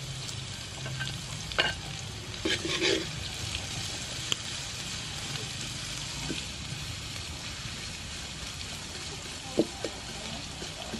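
Sliced lemongrass and kaffir lime leaves sizzling steadily in hot oil in a metal wok while being stirred, with a metal spatula clinking against the pan a few times, mostly in the first three seconds and near the end.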